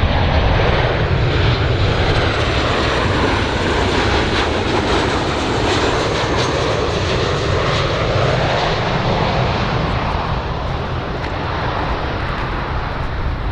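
Airplane engine noise, loud and continuous, with a band in the sound that shifts in pitch through the middle before evening out.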